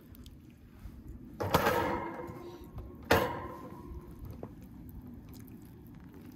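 Two metallic clanks about a second and a half apart, each with a short ring after it: a wire grill rack knocking against a metal tray as it is handled. Fainter handling sounds follow.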